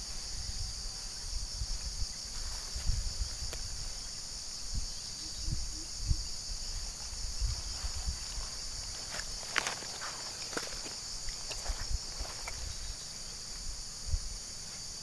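Steady high buzzing drone of tropical insects, with soft low thumps of footsteps in the grass and a few sharp clicks about ten seconds in.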